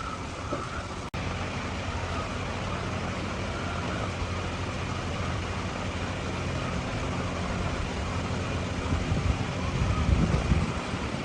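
An engine running steadily with a low hum, growing louder with a few knocks near the end; the sound cuts out for an instant about a second in.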